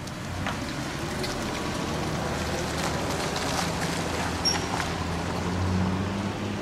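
A vehicle engine running nearby, a steady low hum that grows louder about five and a half seconds in, over scattered light ticks and drips.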